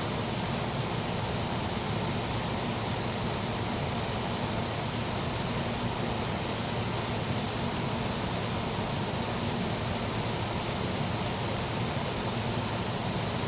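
A 1978-79 GE Sahara 14-pint dehumidifier running steadily: its fan blowing and its Aspera (Tecumseh AE-type) compressor humming low. The compressor is pumping and the coil is turning cold, a sign the unit still holds its refrigerant charge.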